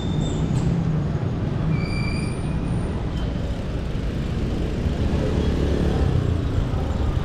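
Steady rumble of wind and road noise on the camera of a moving bicycle, with motor traffic passing. A brief high tone sounds about two seconds in.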